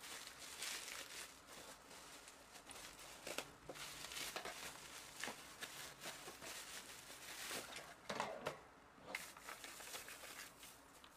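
Faint, irregular rustling and crinkling of something being handled, with a few sharper clicks.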